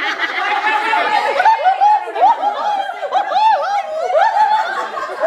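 A group of women laughing and talking over one another, several voices at once with no pause.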